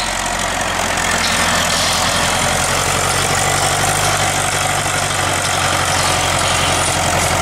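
Diesel engine of a TO-30 wheel loader running steadily close by as the loader works through snow, its low engine note getting a little stronger about three seconds in.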